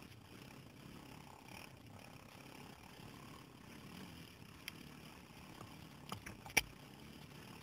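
Quad bike engine running at low revs with a low, steady rumble. A few sharp knocks come near the end, the loudest about six and a half seconds in.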